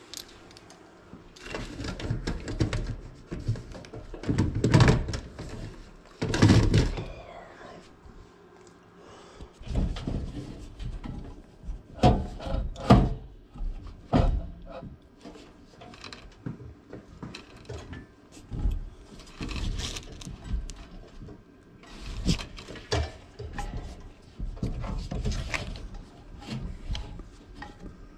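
Irregular handling noises: thuds, knocks and rubbing as a gloved hand works inside the sheet-metal blower housing and squirrel-cage wheel of an air handler, some knocks much louder than others.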